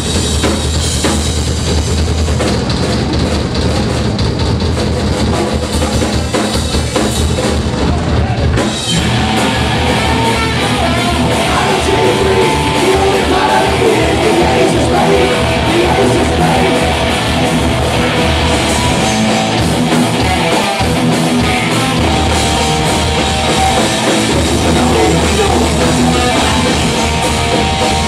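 A live rock band playing loud: electric guitars, bass and a drum kit. The music changes abruptly about nine seconds in.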